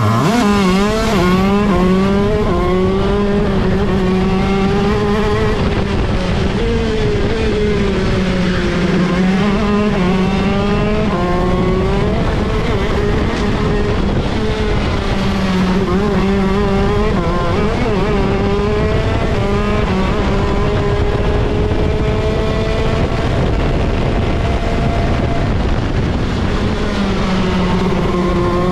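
Onboard sound of a ROK Shifter kart's 125cc two-stroke engine at racing speed, its revs rising and dropping again and again, with the engines of other karts running close by.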